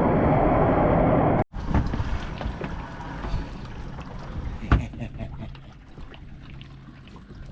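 Loud, steady rushing noise of a water-slide ride that cuts off abruptly about a second and a half in. Then a quieter, low ambience aboard a small boat, with scattered light knocks and one sharper knock near five seconds.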